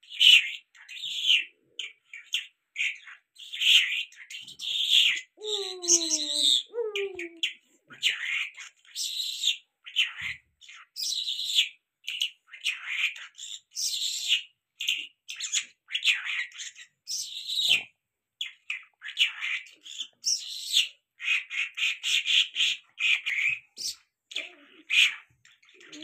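Caged Irani jal songbird singing a long run of fast, high chirping and twittering phrases. Two lower, falling notes sound briefly about six seconds in.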